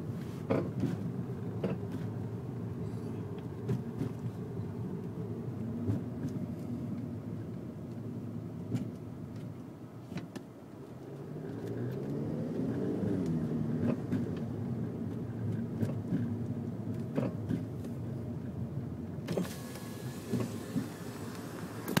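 Inside the cabin of a Volkswagen MKV GLI on the move: the steady drone of its turbocharged four-cylinder and resonator-deleted exhaust over road noise, with the engine note rising and then falling about halfway through. Scattered sharp metal knocks come from the car as it goes over bumps, a fault the driver has not yet traced.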